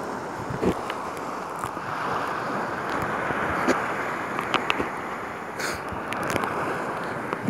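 Small sea waves lapping and splashing against the kayak from which the clip is filmed, with short scattered splashes and drips and wind rumbling on the microphone.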